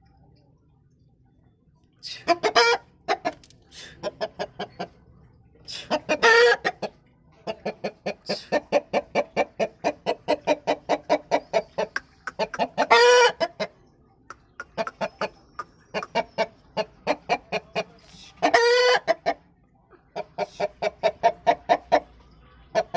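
Aseel chickens clucking in long rapid runs, about four to five clucks a second, broken by four louder, longer calls.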